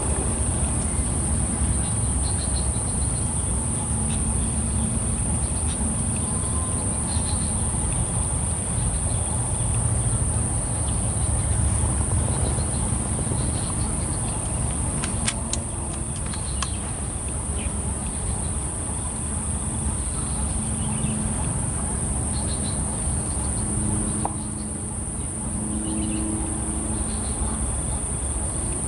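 Steady, unbroken high-pitched drone of insects, over a low background rumble, with a few sharp clicks about halfway through.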